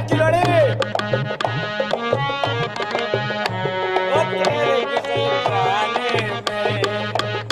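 Upbeat Hindi song music: a quick hand-drum beat under a bending melody line.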